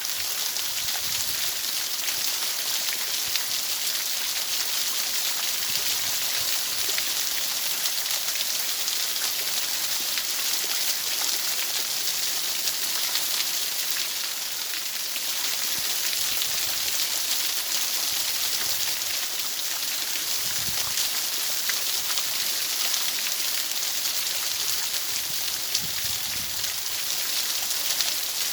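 Steady rain: a dense, even hiss of falling drops, strongest in the treble, with faint scattered drop ticks and a few soft low thumps.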